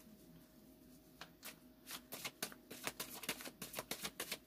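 A tarot deck being shuffled by hand: a run of quick papery snaps that starts about a second in and comes faster toward the end.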